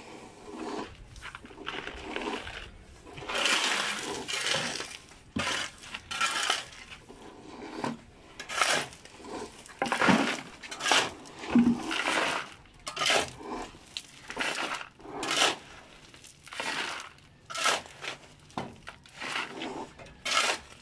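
Steel shovel scraping into a heap of gravel mix and tipping it into plastic buckets: a run of irregular scrape-and-clatter strokes of stones on metal and plastic.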